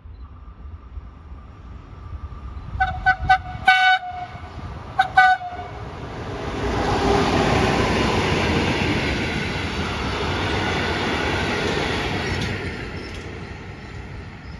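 FS D345 diesel locomotive heading a vintage passenger train, sounding its horn in a quick series of short toots and then one more a second later. The train then passes with a rising rumble and clatter of wheels on rails that fades near the end.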